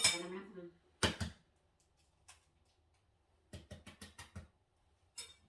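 Sharp taps and clicks of hard objects being handled: a pair about a second in, then a quick run of six or seven light taps about three and a half seconds in.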